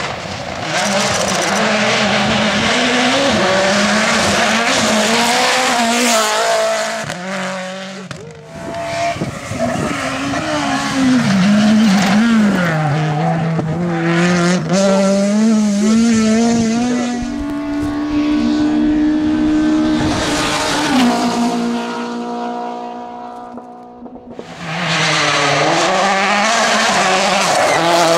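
Rally car engines revved hard at full throttle, the engine note rising and falling with gear changes and lifts off the throttle. There are several breaks where one car's sound gives way to another.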